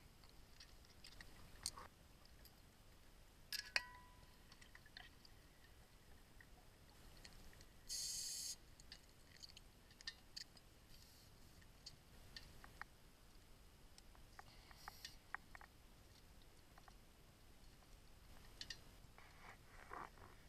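Underwater sound of cave-diving gear: faint scattered clicks and knocks of equipment, with one short hiss about eight seconds in and sharper clicks near the end.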